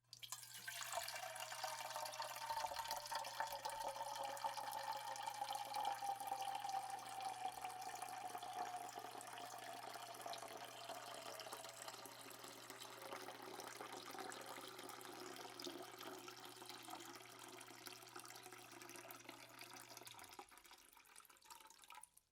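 Water pouring steadily, with a ringing tone in it that slowly falls in pitch as the pour goes on. It eases off a little, then stops abruptly near the end.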